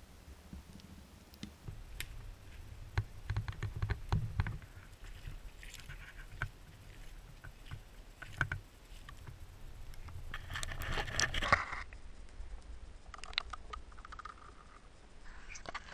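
Footsteps through soil, wet grass and shallow water heard from very close: thuds, scrapes and sharp clicks, with a burst of splashing about ten to eleven seconds in.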